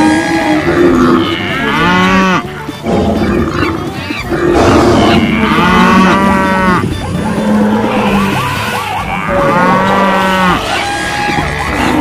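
Stampede sound effect: a chorus of animal calls, with long low moos every couple of seconds and loud rising-and-falling cries about two, six and ten seconds in, over a continuous running noise.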